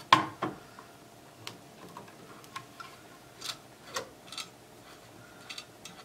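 A screwdriver turning out the CPU heatsink screw in a Dell Optiplex 745 small-form-factor PC: a sharp click at the start, then light, irregular clicks and ticks.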